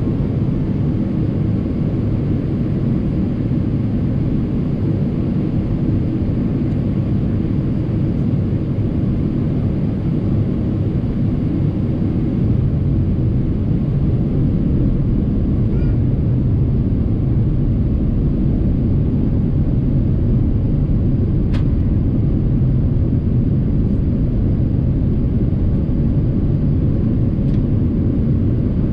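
Steady low rumble inside a jet airliner's cabin on its approach to landing: engine and airflow noise, even throughout.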